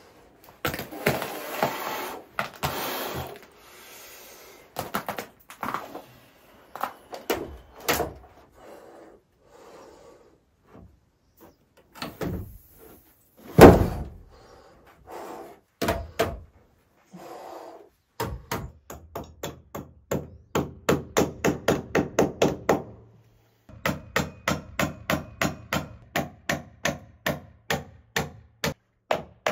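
Long wooden boards knocked and shifted into place as roof beams, with one heavy wooden thud about halfway through. From about two-thirds of the way in, a hammer drives nails into a steel joist hanger in quick, even strikes, about three to four a second, in two runs with a short break between.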